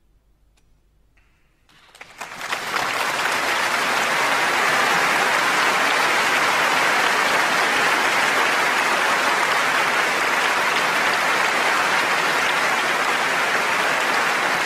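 About two seconds of near silence after the piece ends, then a large concert-hall audience breaks into applause, quickly building to a huge, steady round of clapping.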